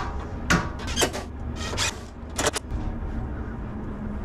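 Short knocks and clatter of a new all-metal radiator and its mounting parts being handled and set in place: about six sharp knocks in the first two and a half seconds, then quieter.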